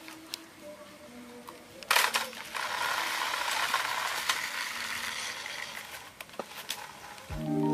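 Battery-powered remote-control toy off-road car driving across concrete, its small electric motor and gears running steadily for about four seconds after a sharp knock about two seconds in, then dying away.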